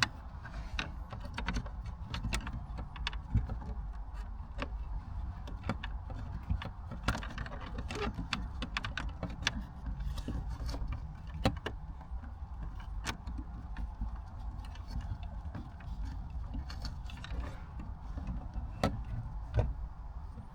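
Scattered small plastic clicks and rattles of hands feeding dash cam wires through a car's interior trim panels, over a steady low rumble.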